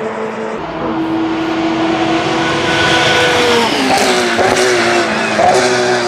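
Endurance racing car engine running at high revs as the car passes; about halfway through, the engine note drops in several steps with quick blips between them, like a car braking and changing down through the gears.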